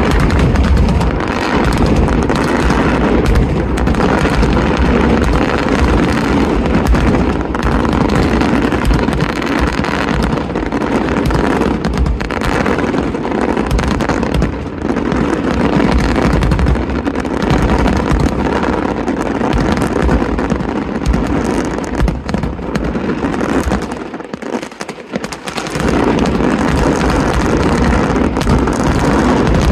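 Large aerial fireworks display: a dense, unbroken barrage of shell bursts and crackling with a deep rumble underneath. The rumble drops away briefly about 24 seconds in, then the barrage comes back at full strength.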